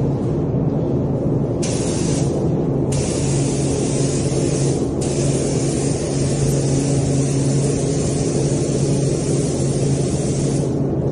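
Compressed-air paint spray gun hissing as it lays down primer. There is a short burst about a second and a half in, then a long pass from about three seconds until near the end, with a brief break around five seconds. A steady low hum runs underneath.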